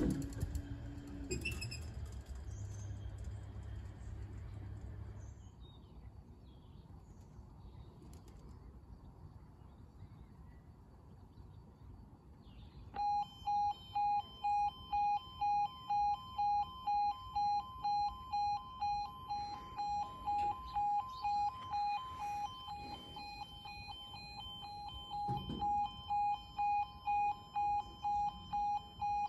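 Level crossing barriers finishing their rise with a low motor hum that fades out. Then, about halfway through, the crossing's audible warning alarm starts as the amber light comes on: a steady pulsing beep, about one and a half a second, that carries on while the barriers lower.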